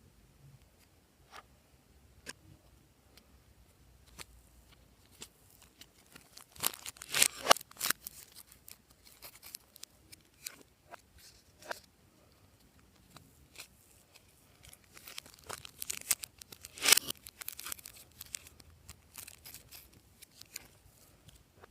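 Glossy slime being worked by hand: scattered sticky clicks and pops, with two denser runs of crackling, one about a third of the way in and one about three-quarters through.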